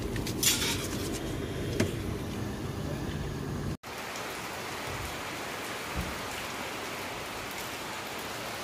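Low rumbling outdoor street noise with a brief sharp noise about half a second in, cut off abruptly near four seconds in. Then steady rain falls on wet ground.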